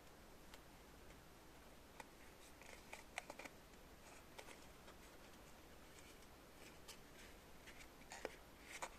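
Faint, scattered small clicks and brief light rustles against near-silent room tone, in two clusters: one about two to three and a half seconds in and one near the end.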